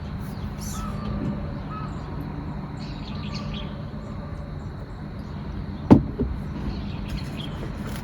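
Birds chirping and calling over a steady low hum, with one sharp knock about six seconds in.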